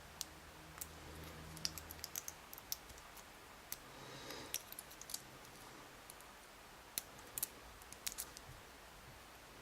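Faint, irregular small metallic clicks and ticks from a very thin lock shim being worked against a padlock as it is pushed at the shackle gap and won't go in.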